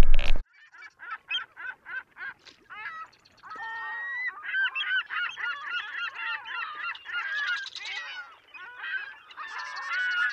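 A flock of birds calling: many short honking calls, a few at a time at first, then crowding over one another from about four seconds in.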